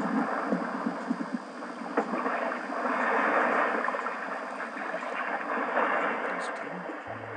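Water rushing and splashing along the hull of a Bavaria 34 Cruiser sailing yacht under way, swelling about three seconds in. Piano music comes in at the very end.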